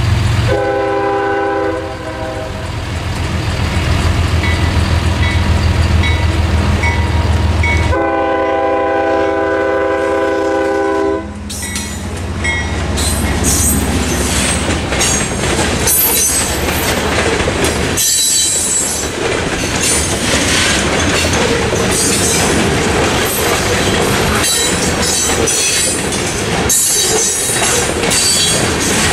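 GE ES40DC diesel locomotive sounding its horn in two long blasts, over the low rumble of its engine. About halfway through, the locomotive and a string of covered hopper cars roll across, their wheels clattering over jointed rail.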